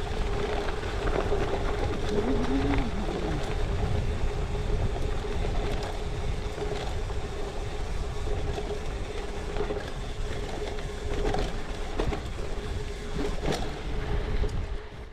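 Gravel bike descending fast over rough gravel: steady wind noise on the bike-mounted microphone and tyre rumble, with a faint steady hum and several sharp knocks as the wheels take hits.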